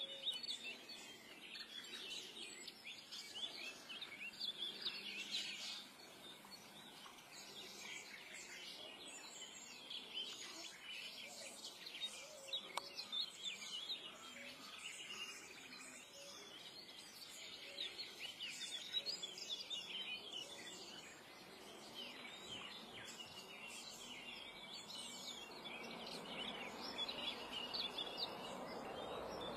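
Small birds chirping and singing in a dawn chorus, many short overlapping calls throughout. Near the end a soft rushing noise grows louder beneath them.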